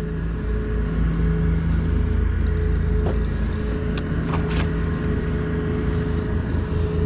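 A motor running steadily: a constant engine hum over low rumble, with a few light clicks and rattles around three to four and a half seconds in.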